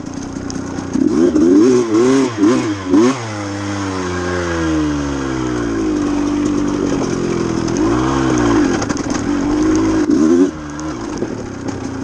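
KTM two-stroke dirt bike engine revving under way, with quick throttle blips, the revs falling away for a few seconds, then steadier running with more blips and a sudden drop in revs near the end. The rider finds the clutch engaging poorly, its basket notched by the plates.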